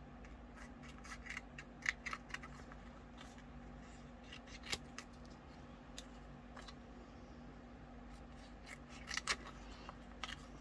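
Scissors cutting butterfly shapes out of a sticker sheet: scattered small snips and clicks, the strongest about two seconds in, near five seconds and just after nine seconds.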